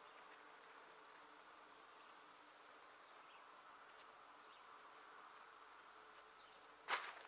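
Near silence: a faint steady hum with a few faint high chirps, and one brief sharp noise near the end.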